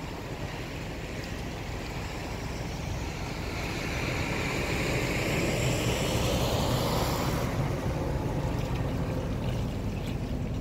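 Motorboat engine passing in the harbour: a steady low rumble with a rushing sound that swells to its loudest about halfway through and then fades.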